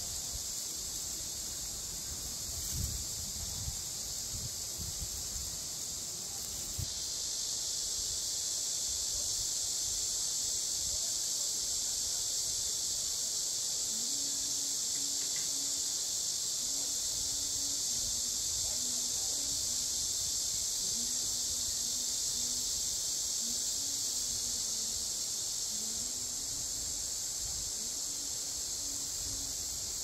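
Steady, high-pitched drone of cicadas in summer woodland, getting louder about seven seconds in.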